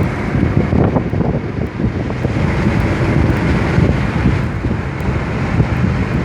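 2014 Audi A6 3.0T with its supercharged V6 on the move: steady engine and road rumble heavily buffeted by wind on the microphone.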